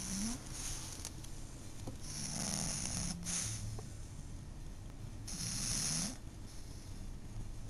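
Elderly pug snoring in her sleep: slow snoring breaths about every three seconds, each a low rasping tone with an airy hiss.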